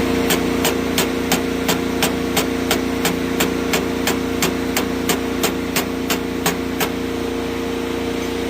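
Rebuilt diesel engine of a Mustang skid steer running steadily, with a sharp tick about three times a second that fades out near the end. The sound cuts off abruptly at the end.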